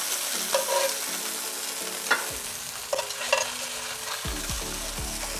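Seared bone-in chicken breasts sizzling in hot oil in a pan, with a few light clicks of metal tongs as the pieces are lifted out onto a plate.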